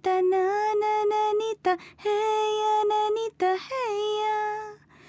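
A high voice singing slowly, holding long notes with short breaks between them; about three and a half seconds in, one note slides down in pitch.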